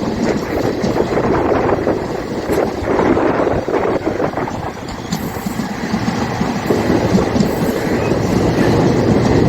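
Indian Railways train running: a steady rumble of the train on the track that dips slightly in loudness about halfway, then builds again.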